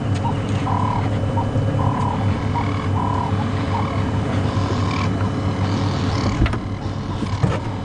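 A steady low hum with a small animal's short call repeated at an even rhythm, roughly one every half second to second. There are a couple of faint knocks near the end.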